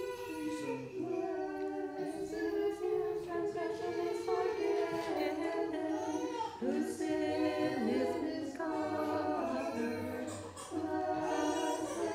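A small choir singing an Orthodox liturgical hymn unaccompanied, with long held notes that change in steps, mixed men's and women's voices.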